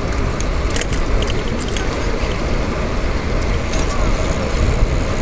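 Wind buffeting the microphone of a chest-mounted GoPro while riding a bicycle, a steady low rumble. Over it come light, scattered rattling clicks from the bike's chain lock, in clusters about a second in and again near four seconds.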